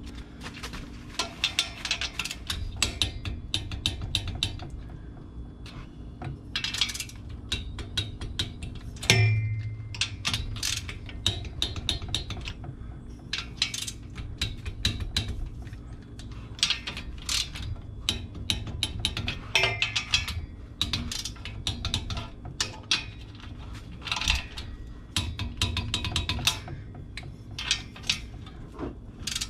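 Ratcheting torque wrench clicking in repeated runs as the cylinder head nuts of a Volkswagen Type 1 air-cooled engine are tightened to final torque spec, with one louder click about nine seconds in.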